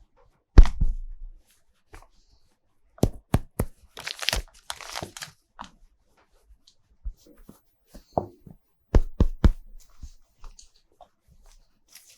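Toy plastic and packaging being handled: scattered sharp plastic clicks and knocks, with a tearing, crinkling rustle about four to five seconds in.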